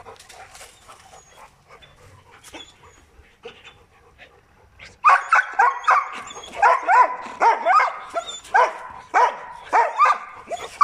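Belgian Malinois barking repeatedly, about two barks a second, starting about halfway in after a quieter first half.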